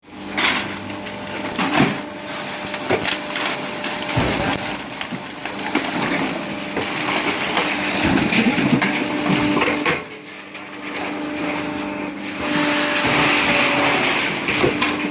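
High-pressure can-crushing press running with a steady hum, with irregular crunching and knocking of cans being pressed; briefly quieter about ten seconds in.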